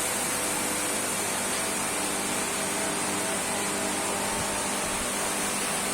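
Hualian vacuum sealer's oil-lubricated vacuum pump running steadily, a constant hum with a hiss.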